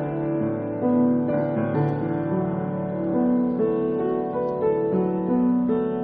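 Solo piano music: a slow, gentle melody over held lower notes.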